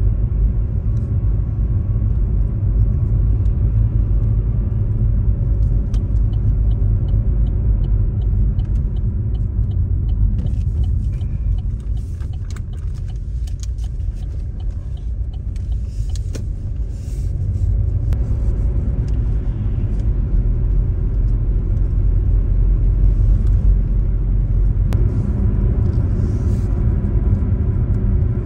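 A moving car's engine and tyre noise heard from inside the cabin: a steady low rumble that eases for a few seconds midway through, then builds again.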